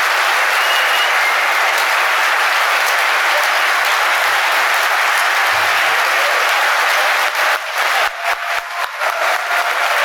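Large audience applauding loudly and steadily; in the last few seconds the applause thins and single claps stand out.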